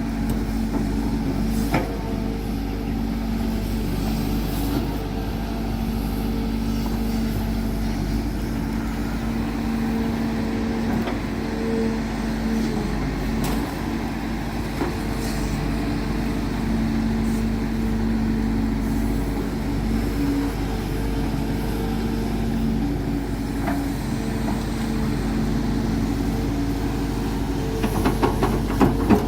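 Heavy diesel machinery engine running steadily with a constant hum. A brief cluster of rattling knocks comes near the end.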